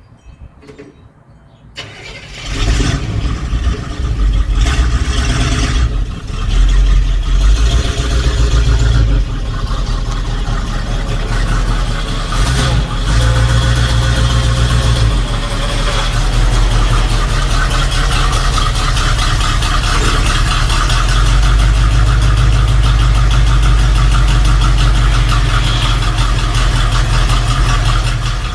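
1977 Chevrolet C10 Cheyenne V8 starting through a new dual exhaust with home-welded mufflers: it catches about two seconds in, revs up and down a few times, then settles into a steady idle. The owner reckons it is running on only seven of its eight cylinders.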